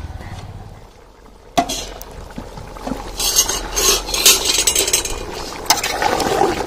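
A metal clink as the aluminium lid comes off the cooking pot about a second and a half in, then the chicken curry bubbling and spluttering in the open pot over the wood fire, with light clinks of metal.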